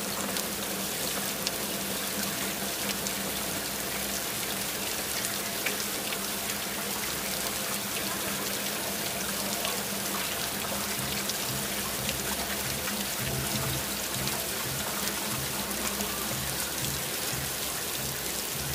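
Steady rain falling on rooftops and a metal balcony railing, a constant hiss with a fine patter of drops. A low steady hum runs underneath.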